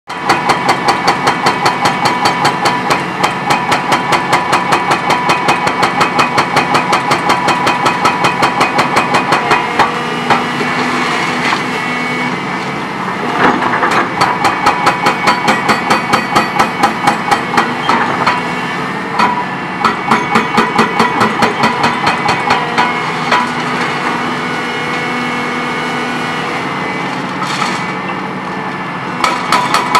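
Dehaco IBEX 7500HS hydraulic hammer on a Volvo EC 700C excavator pounding concrete foundations, a rapid even hammering at about five to six blows a second. The blows come in bursts, the longest first, with short pauses where only the excavator's engine is heard running.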